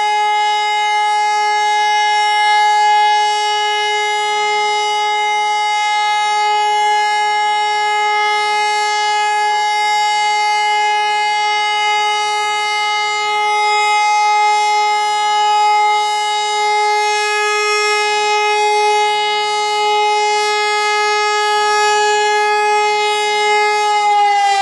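HLS573 high-performance civil-defence siren sounding a loud, steady tone rich in overtones: the Austrian 'Warnung' signal, a three-minute steady tone, here at a test alert. Near the end the pitch begins to drop as the siren starts to wind down.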